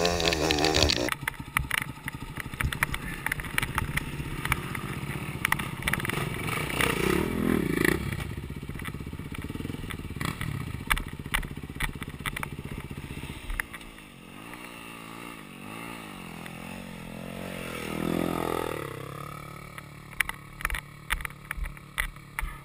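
Off-road dirt bike engine running at low to middling revs, its pitch rising and falling with the throttle, mixed with frequent clattering and knocking as the bike rides over rough snowy trail.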